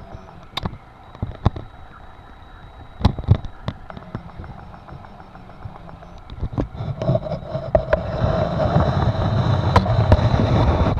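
Electric sewing machine stitching a hem in hammock fabric, running steadily from about six and a half seconds in after a few sharp clicks.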